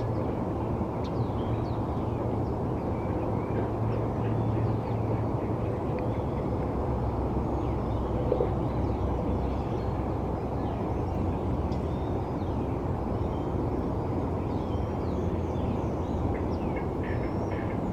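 Steady low rumble of distant city traffic, with faint, short bird chirps scattered through it and more of them near the end.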